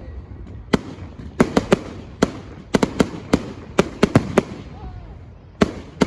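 Fireworks going off: a rapid, irregular series of sharp bangs, many in quick runs of two or three, over a low background rumble.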